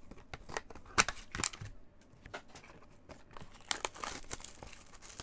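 Crinkling, rustling and tapping of a cardboard trading-card hobby box and its packaging handled in gloved hands while it is being opened, with a sharp knock about a second in and a denser burst of crinkling near the end.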